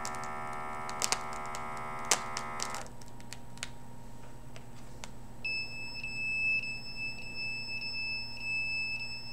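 Electronic alarm tones: a steady buzzing tone that stops abruptly about three seconds in, with two sharp clicks, then after a gap a high, steady, faintly pulsing whine from about five and a half seconds on. A low electrical hum runs underneath.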